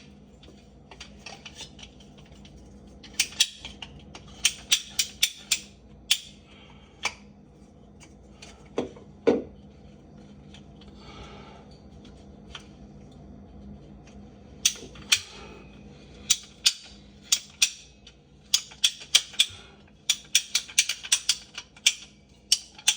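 Bursts of sharp plastic clicks and clatter from PVC drain pipe and fittings being handled and worked on, with a short squeak about nine seconds in.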